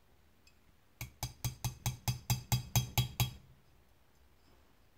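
Small hammer tapping a steel punch set in a hole of the revolver's firing pin keeper, about eleven quick ringing taps at four to five a second, turning the keeper a little at a time to unscrew it from the frame.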